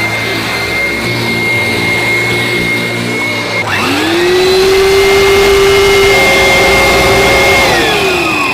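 Professional mattress-cleaning machine with rotating beater brushes running with a steady high whine. About three and a half seconds in a second motor spins up with a rising whine and runs steadily. Near the end it winds down with a falling pitch.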